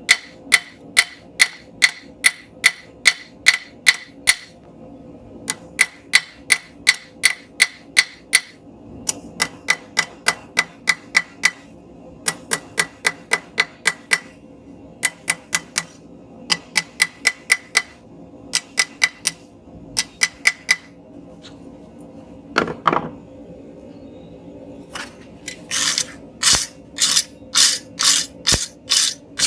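Hand hammer striking hot steel on an anvil, drawing out a chisel point: runs of quick ringing blows, about three a second, broken by short pauses. A single clatter comes about three-quarters of the way in, and the last run of blows is louder.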